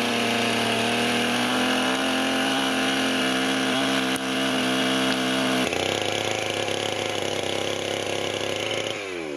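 Two-stroke chainsaw running steadily under load as it cuts lengthwise into a log. The engine note shifts about two-thirds of the way through, then drops near the end as the throttle eases off.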